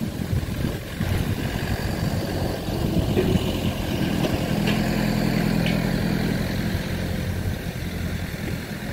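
Eicher truck's diesel engine running steadily as the truck pulls up, its hum growing stronger about four seconds in.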